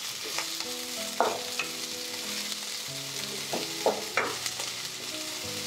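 Sliced onion and capsicum sizzling in a little oil in a stainless steel kadai, with a wooden spatula scraping and tossing them in several short strokes.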